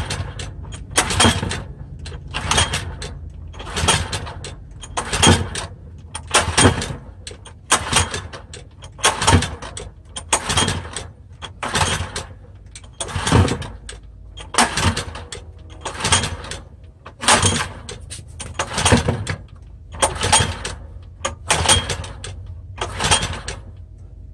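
Recoil starter of a barn-find 6 hp Subaru OHC small engine pulled over and over, about one pull every second and a half, each pull a whirr of rope and the engine cranking over. It is choked and does not catch.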